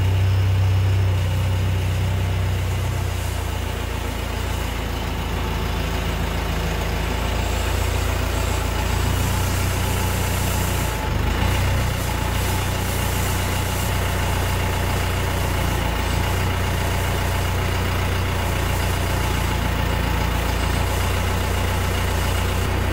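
Branson compact tractor's diesel engine idling steadily, a constant low hum, with a brief change in the sound about eleven seconds in.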